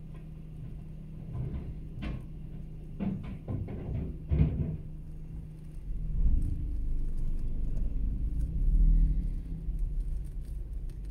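Rear-loader garbage truck tipping a yellow recycling bin over a steady engine hum, the plastic bin knocking against the hydraulic lifter about five times. From about six seconds in, a deeper, louder engine rumble as the truck pulls forward.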